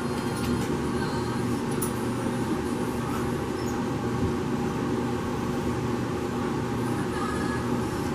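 Steady mechanical hum with a constant low drone and airy hiss, keeping an even level throughout, with a few faint soft ticks over it.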